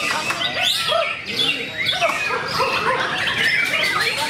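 White-rumped shama singing a fast, varied stream of short whistles and chirps, with notes crowding and overlapping one another.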